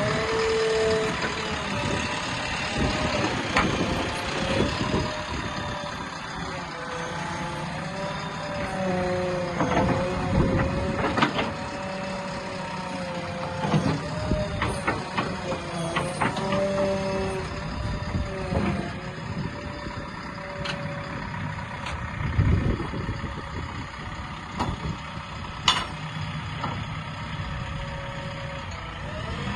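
A JCB 3DX backhoe loader running, its tone rising and falling again and again, with sharp clanks now and then.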